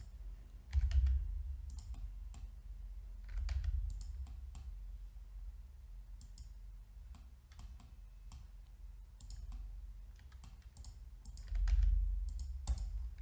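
Scattered clicks of a computer mouse, with an occasional keyboard key press, at irregular intervals. A low thump from the desk comes about a second in and again near the end.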